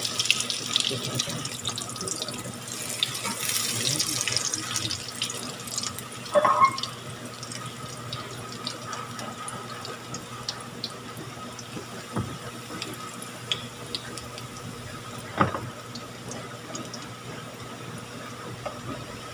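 Sweet potato pancakes frying in hot oil in a wok: a steady sizzle with small crackles, loudest for the first few seconds and then settling. A knock of the spatula against the wok about six seconds in and another about fifteen seconds in.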